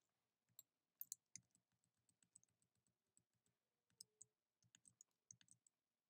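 Faint, scattered clicks of a computer mouse and keyboard, in small clusters about a second in and again near the end.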